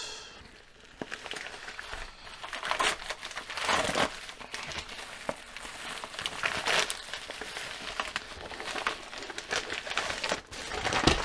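Mail package being opened by hand, with its packaging crinkling and rustling in repeated irregular bursts.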